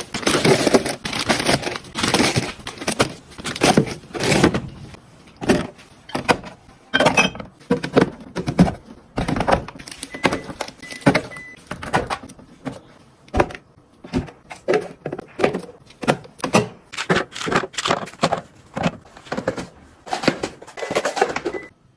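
Food packs and plastic storage containers being handled, rustled and set down with irregular light thunks and clatters while a refrigerator is stocked.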